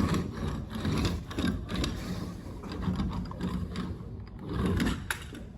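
Drywall taping tools and their extendable handle being worked: a run of irregular mechanical clicks, rattles and scrapes.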